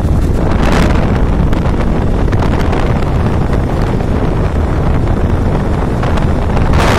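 Wind buffeting the microphone of a phone held out from a moving vehicle: a loud, steady rumble, with gusts of rushing hiss about a second in and again near the end.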